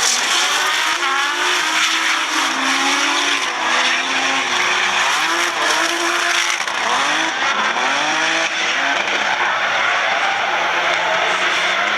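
Drift cars running with their engines revving up and down over and over, alongside tyre squeal as they slide.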